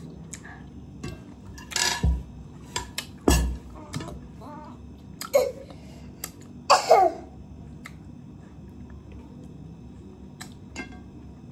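Close-up eating noises: lip smacks and mouth clicks from chewing and licking fingers. There are two dull knocks on the table about 2 and 3.5 seconds in, and a few short voice sounds.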